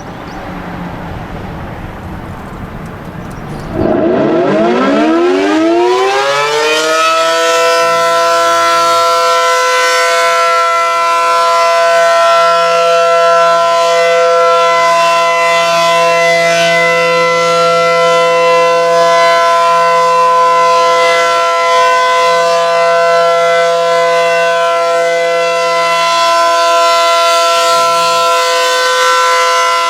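ACA Allertor 125 electro-mechanical warning siren winding up about four seconds in. Its pitch rises for a few seconds, then it settles into one loud, steady single-tone wail that holds through the rest.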